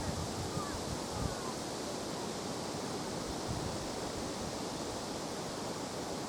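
Wind blowing hard over the river, a steady rushing noise, with brief low thumps of wind buffeting the microphone.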